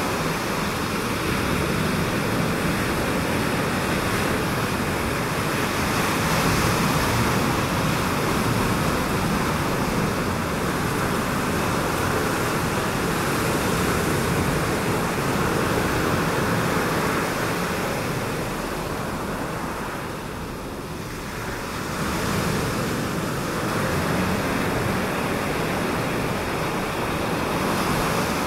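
Ocean surf: a steady wash of breaking waves that swells and eases, with a short lull about two-thirds of the way through.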